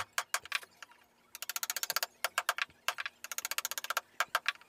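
Small metal-headed hammer tapping a wooden-handled carving chisel with quick, light strokes, in three or four runs of rapid taps with short pauses between. The chisel is paring away excess wood at the edge of a carved design.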